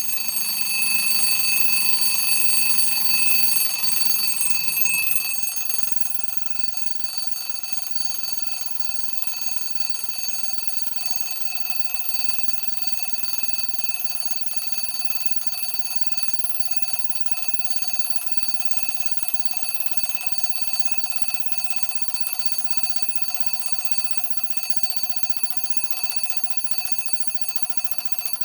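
Five Rams mechanical alarm clock's bell ringing continuously under its hammer. It is loudest for about the first five seconds, then keeps ringing steadily, slightly quieter.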